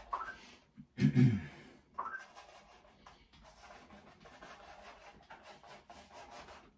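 Stiff decorator's brush dabbing and scrubbing acrylic paint onto a gritty canvas coated in texture paste: a quiet, rough scratching made of many quick strokes. A brief breathy vocal sound about a second in is the loudest thing.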